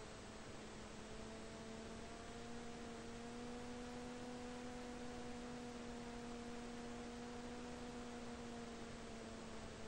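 Brushless electric motor and propeller of a SonicModel Mako flying wing, running steadily in powered cruise as a faint steady drone over a constant hiss. Its pitch rises slightly in the first few seconds and eases off near the end as the throttle changes.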